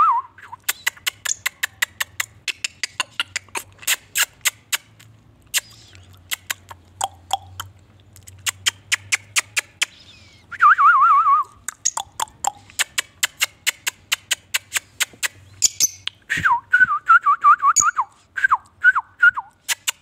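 Fischer's lovebirds calling: a steady string of sharp chirps, about three a second, broken twice by a brief warbling trill, with a run of shorter chirps near the end.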